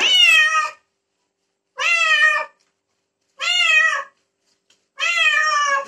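White domestic cat meowing four times, evenly spaced about a second and a half apart, each meow drawn out with its pitch rising and then falling: distress cries at being bathed.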